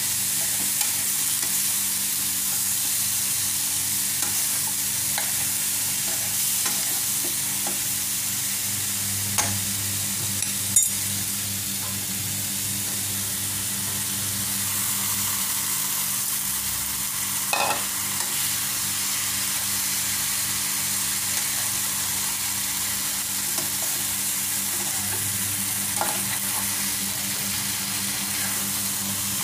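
Vegetables and halved boiled eggs sizzling in a frying pan, stirred with a metal utensil that scrapes the pan, with a few sharp clicks of utensil on pan. A steady low hum runs underneath.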